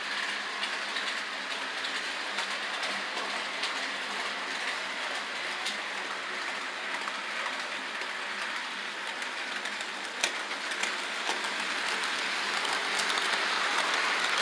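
HO-scale model train running on the layout's track: a steady rattling hum of wheels and motor that grows louder near the end as the train comes into view, with a sharp click about ten seconds in.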